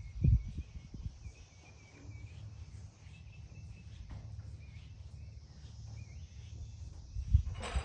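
Insects chirping steadily in the background over a low rumble, broken by a few dull thumps: a loud one just after the start and another about seven seconds in, with a brief scratchy rasp at the very end.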